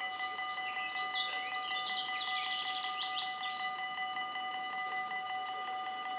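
Dutch level crossing warning bell ringing in a quick, even, steady rhythm, warning of an approaching train. Birds chirp over it from about one to four seconds in.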